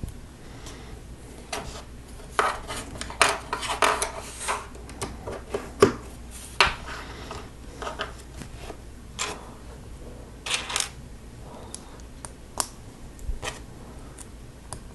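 Small plastic Lego Technic pieces clicking and clattering as they are handled and pressed together: a quick cluster of clicks a few seconds in, then scattered single clicks.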